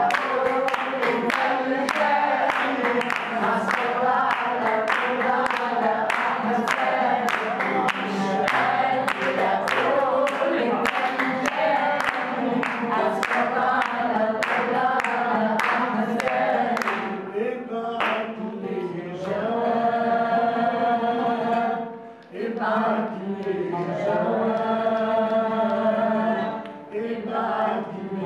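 A group of voices singing together in Arabic style while the singers clap their hands in time, about two claps a second. About two-thirds of the way through the clapping stops and the singing goes on in long held phrases, with two short breaks.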